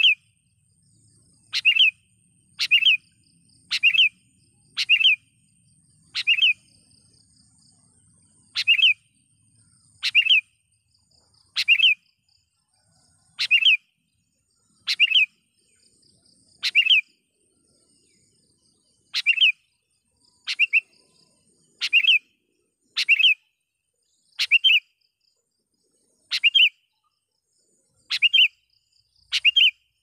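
Sooty-headed bulbul giving short, sharp call notes over and over, about one every second or so at an uneven pace, each one loud and clear.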